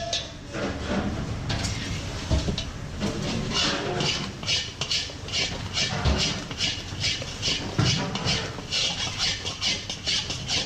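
A spatula scraping and stirring around a pan of thick cornflour halwa, in regular strokes about two to three a second that settle into an even rhythm a few seconds in.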